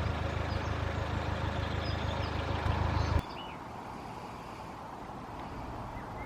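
Narrowboat engine running steadily with a low hum, cutting off abruptly about three seconds in to quieter outdoor ambience with a few faint bird chirps.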